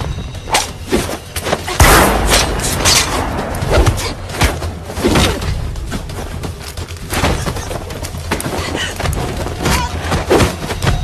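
A rapid series of thuds and bangs, the loudest nearly two seconds in.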